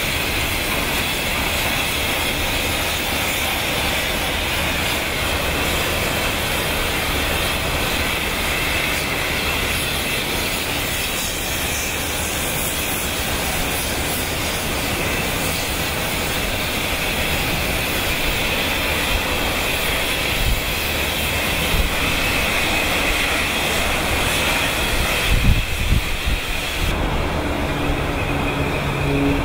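Ore ship-loading machinery running with a steady, dense mechanical noise and hiss, with a few low bumps about three-quarters of the way through.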